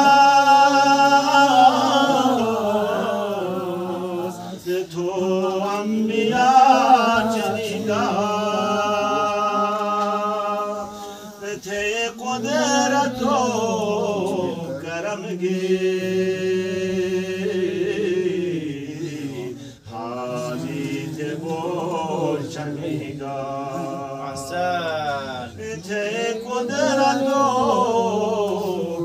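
A man's voice chanting unaccompanied, a slow melody of long held notes that swell and fall, in long phrases with brief pauses for breath.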